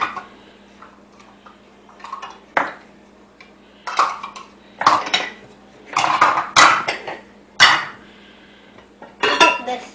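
Eggs knocked against the rim of a stainless steel mixing bowl to crack them: a series of sharp, ringing knocks and clinks on the metal, a second or so apart, most of them in the second half.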